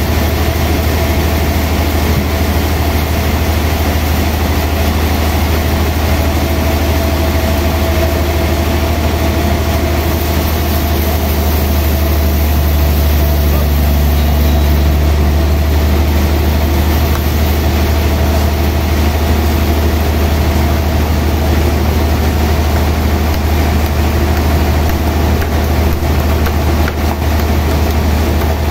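Large band sawmill running with a steady, loud low hum and a constant whine as its blade cuts lengthwise through a big log.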